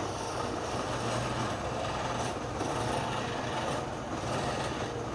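Wood lathe running, its motor giving a steady low hum under an even rasping rub against the spinning wood.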